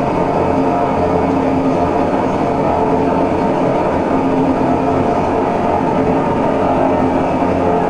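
Laptop-played electronic drone music: a dense, steady rumble with a low hum and several held tones above it, unchanging in loudness.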